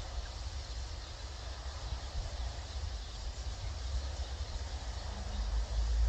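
Steady outdoor din of a large starling flock: a fine high hiss of massed chatter over a low rumble that swells near the end.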